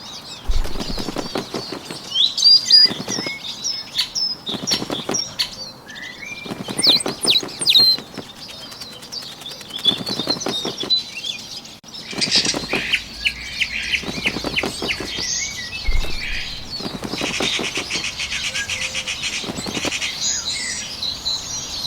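Bird wing-flapping sound effect: repeated bursts of rapid wingbeats, each about a second long, with songbird chirps over them. The chirping grows denser and steadier in the second half.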